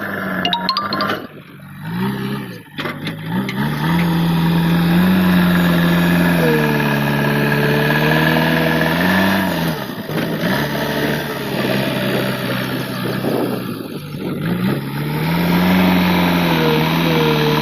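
JCB 3DX backhoe loader's diesel engine running under load, its revs rising and falling again and again as the machine works. There are a few sharp clanks in the first three seconds.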